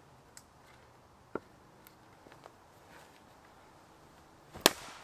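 A hatchet striking a log on a wooden chopping block: a light knock about a second in, then one sharp, loud chop near the end.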